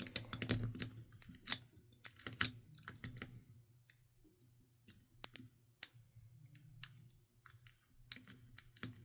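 Lock pick and tension wrench working in a Master Lock padlock's keyway during single-pin picking: small, irregular metallic clicks and scrapes as the pins are worked. They come thick in the first few seconds, then sparse, with a short cluster near the end.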